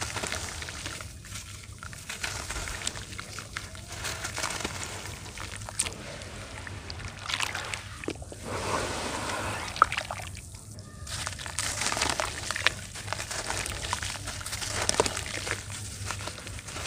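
Wet red dirt sloshing and squishing as it is worked in water, with small crackles and clicks that come and go unevenly.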